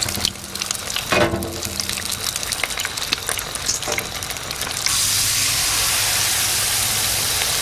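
Battered fish fillets frying in hot oil in a frying pan, crackling and sizzling. About five seconds in, a fresh battered fillet goes into the oil and the sizzle jumps to a louder, dense, steady hiss.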